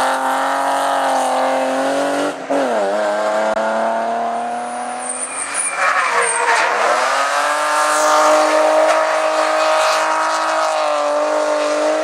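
BMW E36 3 Series race car engines at full throttle. The first car accelerates hard, with an upshift about two and a half seconds in. A second car comes off the throttle around five seconds in, with a brief high tyre squeal, then accelerates hard again, its engine note climbing.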